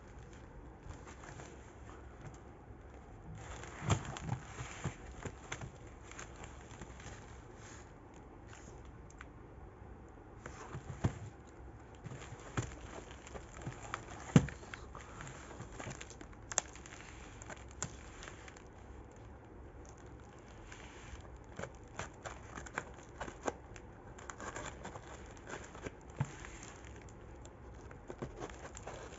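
Packaging being handled and opened by hand: crinkling and rustling with scattered sharp taps and knocks, the loudest knock about fourteen seconds in.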